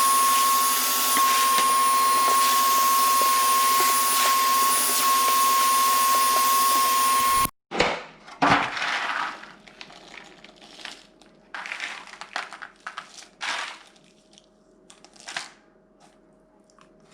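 Vacuum cleaner running steadily with a high whine, switched off suddenly about seven seconds in. Scattered short rustles and clicks of handling follow.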